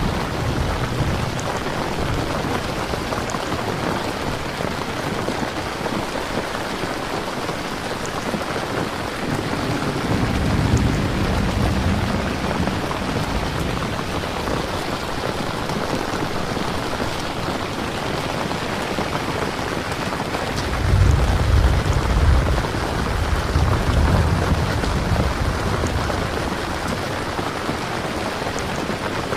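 Steady rain falling, with low rolls of thunder about ten seconds in and again, louder, a little past twenty seconds.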